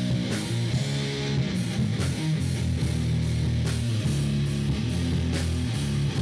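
Heavy metal music with electric guitar and drums.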